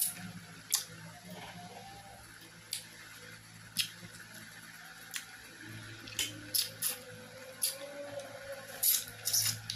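Close-miked sounds of a person eating fish and rice by hand: short, sharp, wet lip smacks and chewing clicks, scattered at first and coming more often over the last few seconds.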